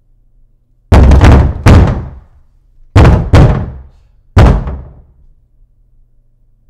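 Heavy pounding on a closed interior door: five loud bangs in two pairs and a single (about a second in, then near three and four seconds, then once more after four), each ringing out briefly.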